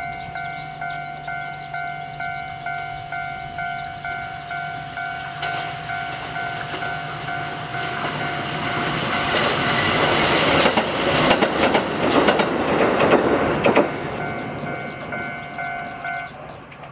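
A railway level-crossing warning bell ringing in a steady repeating ding, about one and a half strikes a second, stopping shortly before the end. Partway through, a two-car Kotoden 1080 series electric train (ex-Keikyu 1000 series) passes close by, its motors and wheels rumbling and clacking over the rail joints, loudest as it goes past, then fading.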